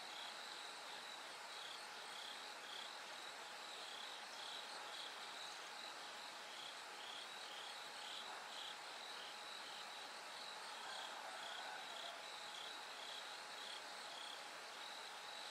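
Bell crickets singing: short, high ringing chirps repeated in an even rhythm over a steady high insect trill and a faint hiss.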